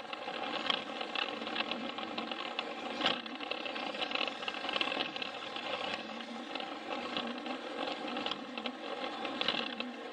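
A battery-powered Plarail toy train running: its small electric motor and plastic gears whir steadily, with its wheels clicking and rattling over the plastic track. One click about three seconds in stands out.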